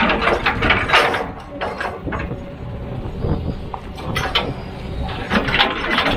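Heavy machinery working: a steady low engine rumble with irregular knocks and clanks, loudest about a second in and again near the end.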